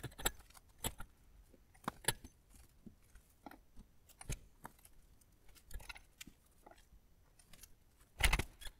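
Scattered light metallic clinks and jingles from an engine hoist's lifting chains and the hanging engine as it is lowered into the engine bay, with a louder rattle near the end.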